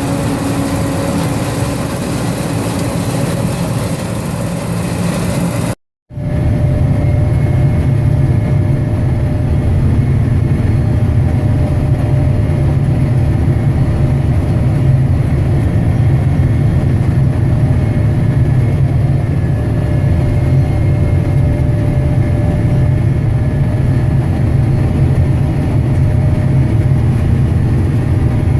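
Heavy farm machinery engine running steadily under load. About six seconds in, the sound cuts out for an instant, and afterwards it is a deeper, steady low drone.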